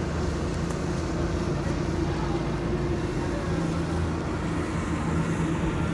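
Steady low mechanical drone with several held low tones, like a running engine or machinery.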